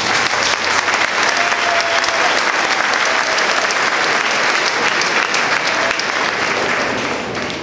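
Crowd applauding steadily, then dying away near the end.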